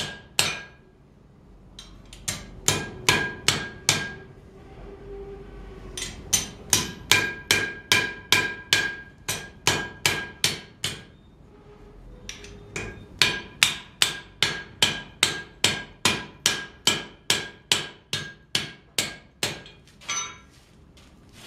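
Hand hammer striking steel on an anvil, with a clear metallic ring to each blow. The blows come in three runs of about two to three a second, with short pauses between, as a steel flower piece is shaped.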